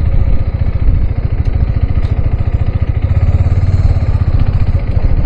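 Motorcycle engine running steadily while it is ridden, its fast firing pulse heard as a low rumble, with wind rumbling on the rider's external microphone.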